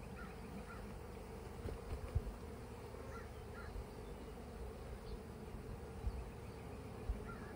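A cloud of honeybees buzzing steadily around an open hive as a package of bees is shaken in; the bees are a little agitated. A few low thumps sound about two seconds in and again near the end.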